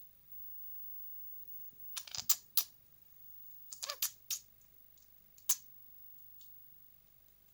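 Short, sharp coughs in three bouts: four quick hacks about two seconds in, four more a second and a half later, and a single cough near the end.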